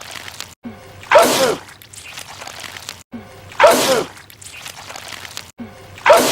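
A man sneezing loudly, the same sneeze repeated three times about two and a half seconds apart as a short clip loops. Each repeat starts after a sudden cut to silence, with a brief intake before the sneeze.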